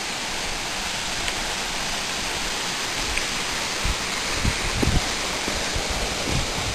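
Steady rushing noise of running water, with a few dull low thumps from about four seconds in.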